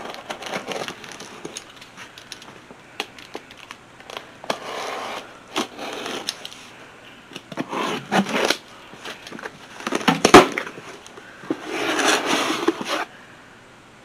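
Packaging rustling and crinkling as a fry pan is unwrapped, with scattered sharp clicks and one louder knock about ten seconds in.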